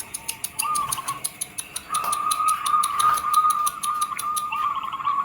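Zebra dove (perkutut) cooing: a trilled, wavering call held near one pitch from about two seconds in, over a fast, steady high ticking of about eight a second that fades out after about four seconds.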